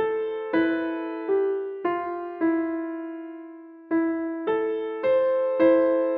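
Solo piano alarm-clock tune: a slow, simple melody of notes struck about every half second, each ringing and fading away. About two and a half seconds in, one note is held for about a second and a half before the melody picks up again.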